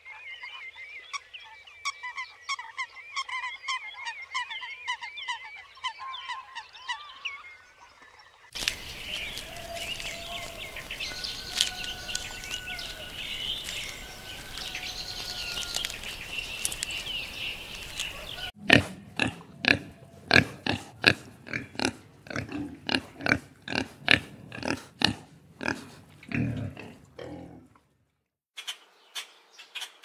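Purple swamphens calling with rapid, wavering cackles for the first seven seconds or so. Then a steady outdoor hiss with a few thin whistled calls, then a long run of short sharp animal calls at about two a second from an unseen source. After a brief gap, an oriental darter clicking near the end.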